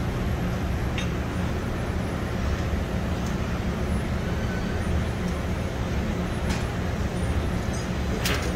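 Steady low drone of a commercial kitchen's ventilation and equipment, with a few faint light clicks.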